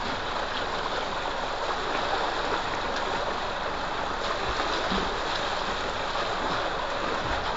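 Water gushing steadily from a pipe into a concrete tank, with splashing as men move about in the water.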